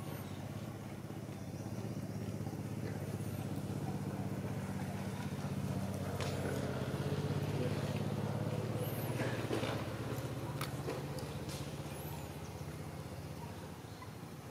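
A motor vehicle's engine running at a low hum, growing louder to a peak about halfway through and then fading as it passes by. A few short, very high chirps sound over it.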